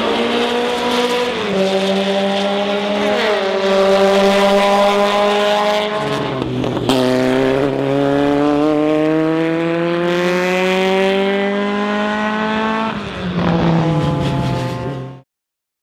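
Renault Alpine race car engine at full throttle, climbing through the gears: long rising pulls broken by upshifts, each a sudden drop in pitch. The sound cuts off abruptly near the end.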